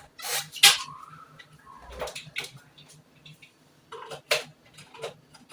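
Several sharp knocks and clatters, the two loudest within the first second and another pair about two and four seconds in, over a faint steady low hum.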